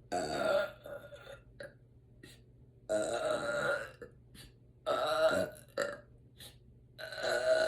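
A woman burping four times, each belch lasting about half a second to a second, a couple of seconds apart, on a full stomach after a meal.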